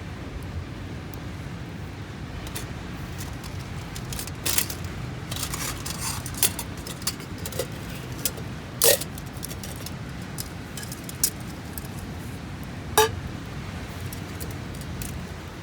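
Wood campfire crackling, with scattered small pops and two sharper, louder clicks about nine and thirteen seconds in, over a steady low background rumble.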